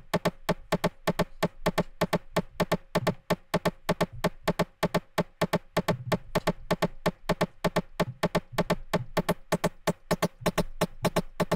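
A short, clicky synth stab sample plays as a fast sequenced techno pattern, about eight hits a second, each hit a brief pitched note.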